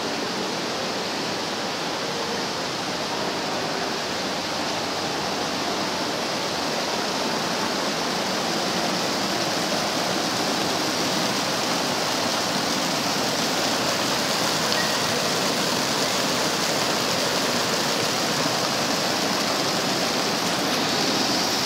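Indoor fountain: thin streams of water falling and splashing into a shallow round basin, a steady rush of water that grows gradually a little louder partway through.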